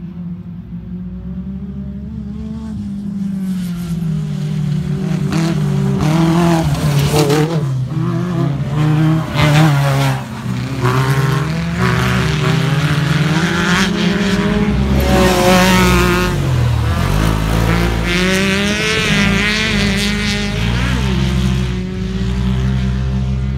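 Off-road racing buggy engines revving hard as they race on a dirt track, the pitch climbing and dropping again and again through the gear changes. It grows louder through the middle as a buggy passes close, then eases off.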